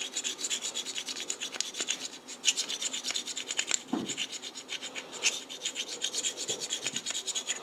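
Hand-held abrasive stone rubbed in quick back-and-forth strokes against a steel Woodruff key on a shaft, stoning off a burr.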